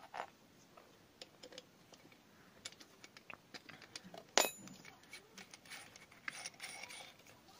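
Faint metallic clicks and rattles of a drill bit being fitted into a keyed drill chuck and the chuck being turned by hand, with one sharper click about four and a half seconds in.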